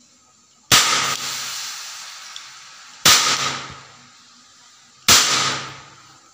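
Toy roll-cap revolver firing three loud shots, each cap going off with a sharp bang that rings on and fades over a second or two; the shots come about two and a half seconds and then two seconds apart.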